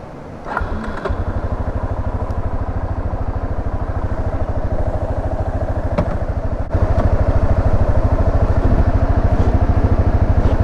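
Yamaha Serow 250's carburetted single-cylinder engine idling with a steady pulsing beat, starting about half a second in and getting louder about seven seconds in.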